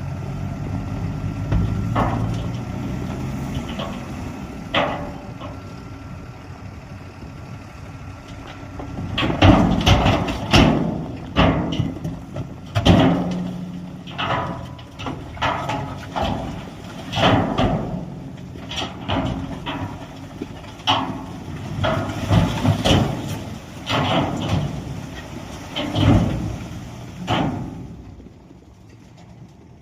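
Diesel earthmoving machinery running, with many irregular loud clanks and knocks from about nine seconds in, as of metal on stone or rock and soil being dumped and worked. The clanking dies down near the end.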